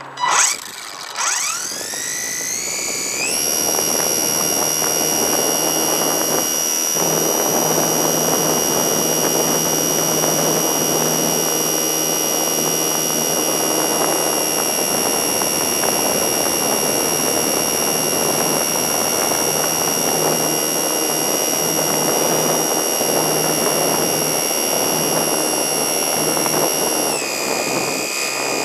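HobbyZone Super Cub radio-controlled plane's electric motor and propeller, heard from the camera on board. The whine rises steeply as the throttle opens for takeoff, then holds as a steady high whine over rushing air through the climb, and drops slightly in pitch near the end.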